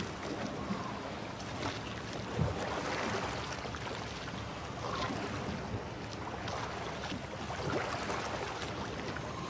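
Open-sea ambience around a boat: a steady wash of water and wind noise, with a few faint brief splashes.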